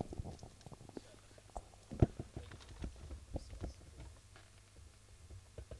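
Microphone handling noise: scattered soft knocks, rubs and clicks at an irregular pace, with one louder thump about two seconds in, over a faint low hum from the sound system.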